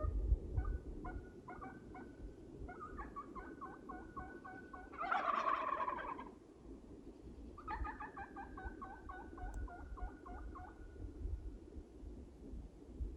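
Merriam's wild turkeys calling: runs of quick, evenly spaced notes, with one louder, fuller call about five seconds in.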